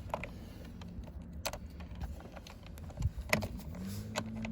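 A few light metallic clicks and taps as a steering wheel mounting bolt is fumbled against the wheel hub, searching for its threaded hole. A faint steady hum comes in near the end.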